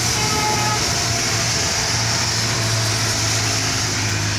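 Steady hiss of rain with traffic on a wet road, led by a bus's engine humming as it drives past. A brief tone sounds in the first second.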